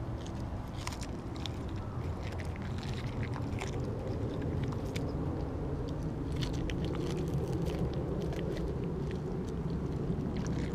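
Siberian husky chewing and biting into a whole raw mackerel: wet crunching with many short irregular clicks as the teeth work through the fish, over a steady low rumble.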